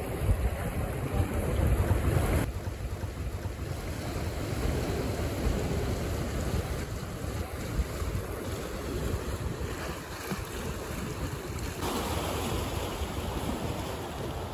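Sea waves washing onto the shore, with wind gusting on the microphone.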